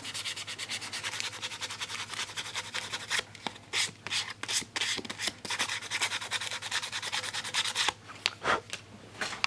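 Sandpaper rubbed quickly back and forth by hand over a rubber radiator hose, a rapid run of scratchy strokes with a couple of short breaks. The surface is being sanded clean and rough to take a puncture-repair patch.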